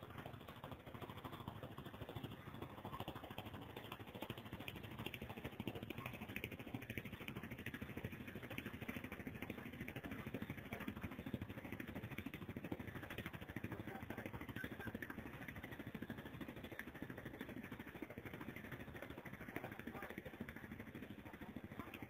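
Diesel engine of a KATO tracked excavator running steadily.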